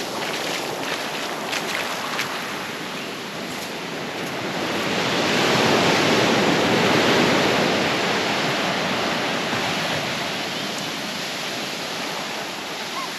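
Surf on a beach: a wave builds about four seconds in, breaks into a loud wash, then slowly fades back over the following seconds.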